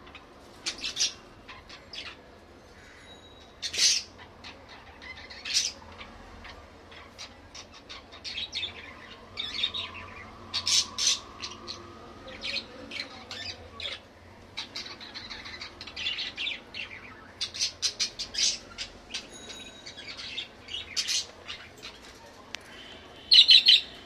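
Caged budgerigars chattering in short, sharp, irregular chirps and squawks, with a loud burst near the end.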